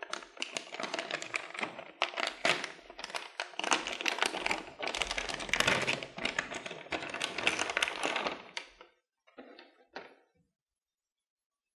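Metallized anti-static bag crinkling and crackling as it is handled and opened to take out a PCI capture card. The crinkling stops about nine seconds in, followed by two brief, light handling sounds.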